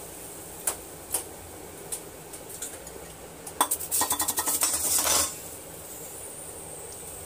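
Metal spoon clinking against an aluminium cooking pot and its lid: a few single clinks, then a quick run of clinks and scraping for about a second and a half just past the middle.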